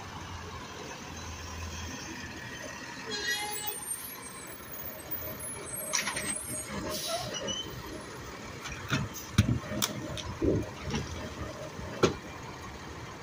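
Garbage truck running, with a brief squeal a few seconds in and a hiss of air about six seconds in. Several sharp metallic knocks and clanks follow in the second half.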